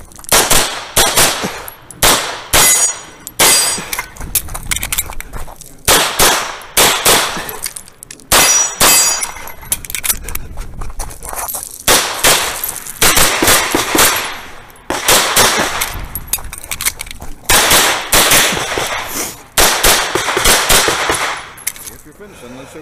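Rapid pistol fire from a Tanfoglio Limited Pro, shots coming in quick pairs and strings broken by short pauses, through a whole course of fire.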